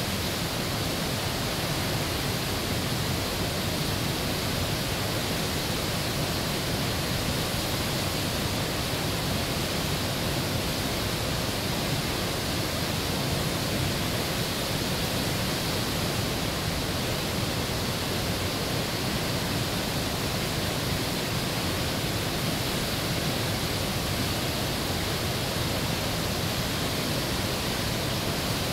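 Whitewater of the Potomac River's Great Falls rushing over rock ledges: a steady, unbroken wash of water noise.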